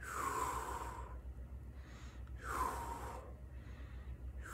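A person breathing heavily and audibly, a deep breath about every two seconds, each lasting under a second.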